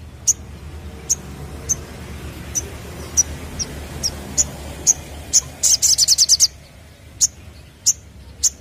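Male olive-backed sunbird giving sharp, high single chirps every half second to a second, breaking into a fast rattling trill of chirps about six seconds in.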